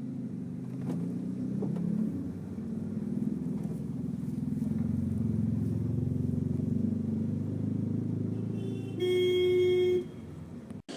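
Car engine running under way, its low hum shifting in pitch as it speeds up and slows. About nine seconds in, a car horn sounds once for about a second.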